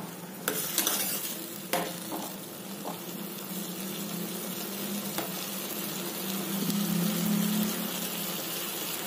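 Chopped tomatoes sizzling in hot oil in a pan while a steel spoon stirs them, knocking and scraping against the pan a few times in the first three seconds and once more about five seconds in. A low hum grows louder past the middle.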